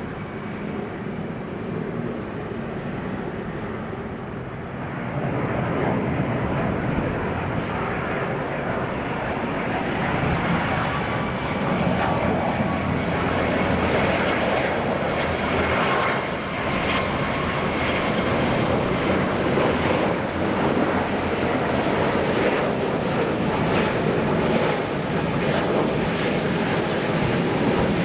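Boeing 777-300 airliner on final approach: a steady rush of twin jet engine noise that grows louder about five seconds in and stays loud, with a faint high whine.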